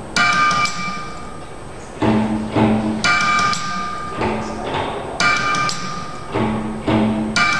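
MIDI-controlled percussion instrument built from a found piano action, its motor-driven hammers playing a repeating rhythm of sharp knocks, roughly two a second, with short ringing pitched tones after the strikes.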